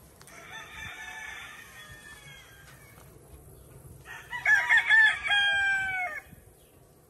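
Gamefowl roosters crowing: a fainter crow about half a second in, then a loud, close crow about four seconds in that lasts around two seconds and trails off on a long held note.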